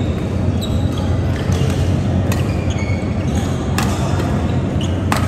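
Badminton rally: sharp racket strikes on a shuttlecock about every second and a half, with short high squeaks of shoes on the court floor, over a steady low hum.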